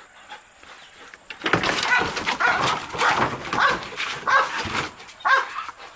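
Belgian Malinois barking repeatedly, starting about a second and a half in, with the barks coming about one every three-quarters of a second in the second half.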